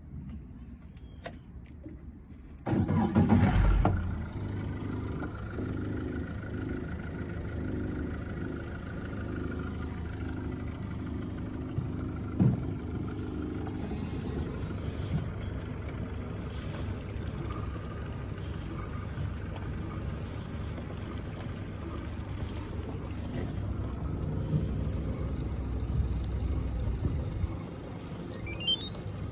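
Ignition key jingling in the switch, then the Yamaha FW23 boat's engine cranks and catches about three seconds in, loudest at the start, and settles into a steady idle.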